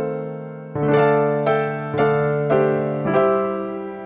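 Background music: electric piano chords, a new chord struck about every half second, each ringing and fading until the next.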